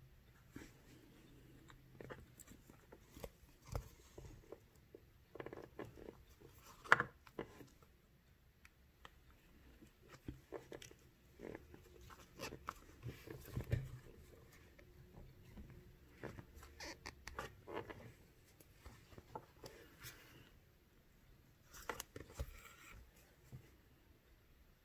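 Quiet handling sounds of hand beadwork: scattered small clicks and rustles of a needle, thread and seed beads being worked into a stiff felt backing, with a sharper click about seven seconds in.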